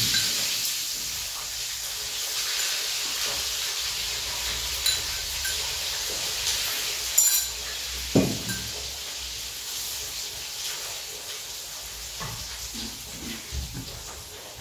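Flour-coated chicken pieces frying in hot oil: a steady sizzling hiss with a few sharp pops.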